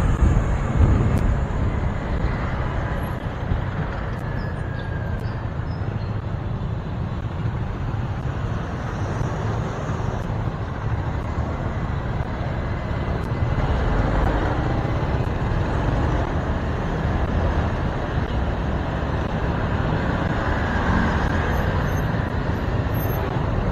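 Motorcycle riding through heavy city traffic: steady engine and road rumble from the bike, with cars, trucks and a bus running close alongside.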